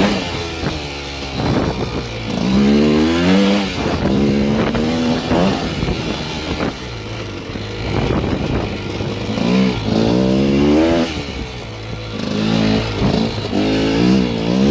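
Two-stroke 250 cc enduro motorcycle engine revving in repeated surges, its pitch climbing and dropping with the throttle as the bike is ridden off-road.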